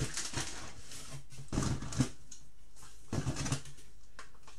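Rummaging in a cardboard box and handling plastic clamshell packs of wax melt bars: a few short rustles and light knocks.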